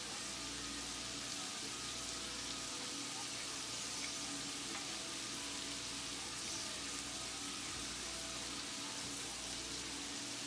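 Flour-coated mushrooms deep-frying in a pot of hot grease, giving off a steady, even sizzle.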